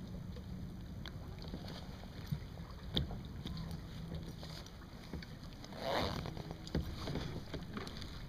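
Light knocks and handling noise in a kayak over a steady low wind hiss on the microphone, with a sharp knock about three seconds in and a short rustling burst about six seconds in.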